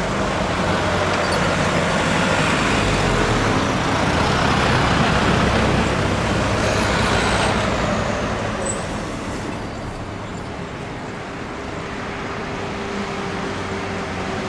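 Boeing 787-9 Dreamliner's jet engines running at low taxi thrust as it rolls by: a steady rushing hum that swells to its loudest about five seconds in and eases off after about eight seconds.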